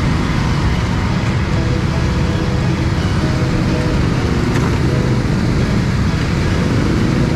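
Go-kart engine running, a steady low rumble with a faint, even engine tone.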